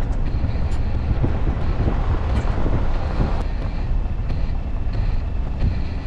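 Steady, gusty low rumble of wind and road noise from a pickup truck driving a bumpy dirt road, with a few faint knocks.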